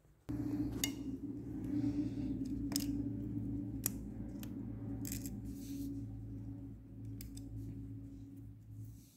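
Sharp metallic clicks and clinks of steel parts being handled on a truck cylinder head: a valve spring being pressed down and the small valve locks (collets) set on the valve stem. Under the clicks a steady low machine hum starts suddenly just after the start and keeps going.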